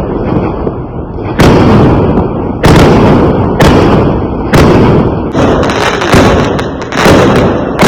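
Fireworks going off in a steady run of loud bangs, about one a second, each followed by a long fading echo.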